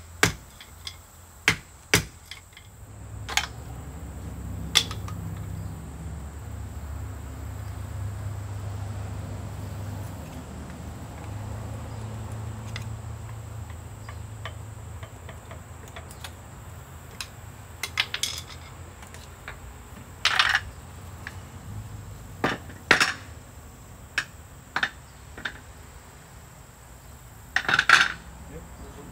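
Scattered metallic clinks and clanks of hand tools and engine parts being handled during a diesel engine teardown, over a low steady hum that fades about two-thirds of the way through.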